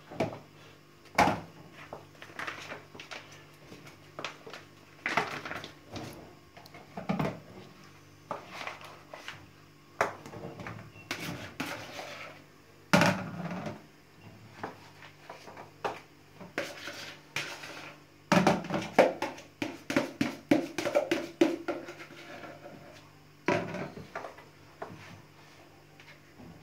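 A spatula knocking and scraping as it loads whipped cream into a piping bag: irregular sharp taps and clicks, with a few louder knocks and a busier run of taps about two-thirds of the way through.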